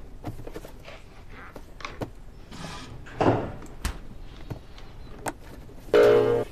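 Light handling sounds, soft rustling with small clicks and taps, and a louder swish about three seconds in. Near the end comes a short, louder pitched sound.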